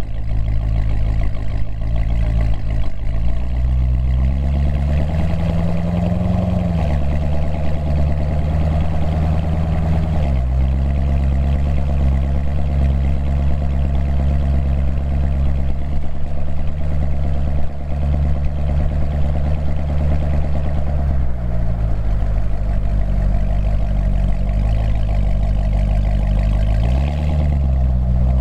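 Corvette V8 running through its stock NPP exhaust while driving. The engine note climbs over the first few seconds, drops sharply twice, holds a steady pitch through the middle, then falls again and briefly rises and dips near the end.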